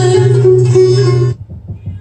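Music with plucked strings played loud through a speaker on one output of a repaired 24-volt amplifier, as a test that this output works. It cuts off a little over a second in.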